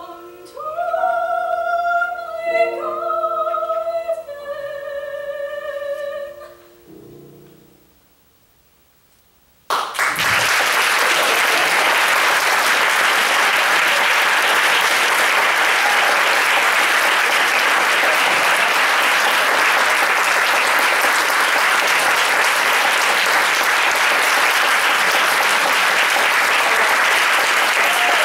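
Soprano and tenor voices holding the closing notes of a duet with piano, ending about six seconds in, then a short hush. Loud, steady audience applause starts about ten seconds in and carries on.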